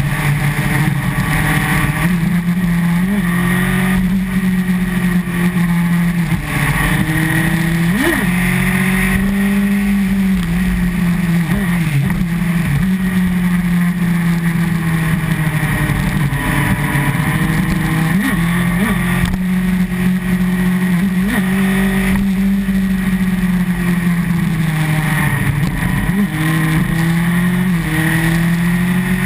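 Honda CBR954RR Fireblade's inline-four engine running under way. Its pitch swells and dips with the throttle, with several quick dips and rises as the rider rolls off and back on, over steady wind rush.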